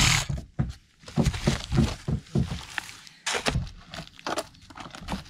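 A cordless jigsaw cutting into the wooden deck stops just after the start. Then comes a string of irregular knocks and taps, a few a second, as cut wood is handled around the fresh hole in the deck.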